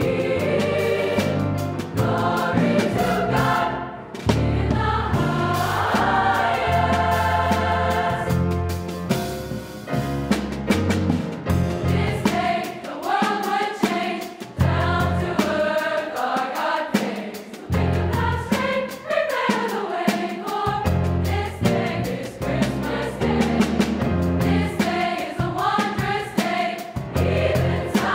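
Large high-school choir singing in parts with piano accompaniment.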